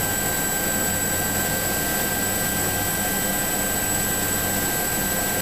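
SA319B Alouette III helicopter in steady flight, heard from on board: its Turbomeca Astazou turboshaft and rotor give a constant rush with a steady high whine.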